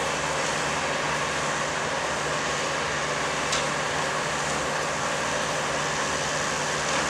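Steady running of the diesel engine and hydraulics of a track maintenance machine working a new tie in under the rails, with one short click about three and a half seconds in.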